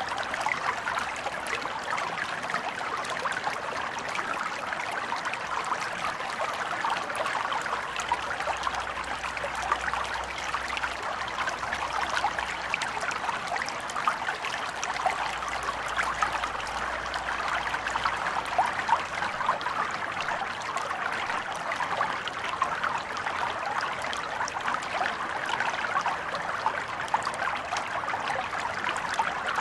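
Small stream flowing steadily: a constant trickling babble of water with many small splashes and gurgles.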